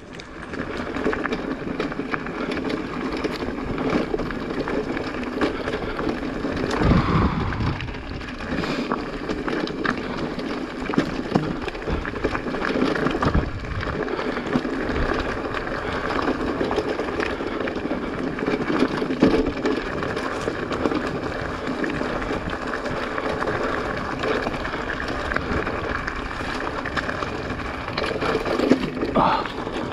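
Mountain bike riding down a rough single-track trail: tyres running over stones and the bike rattling, with wind noise on the microphone. A heavier thump comes about seven seconds in.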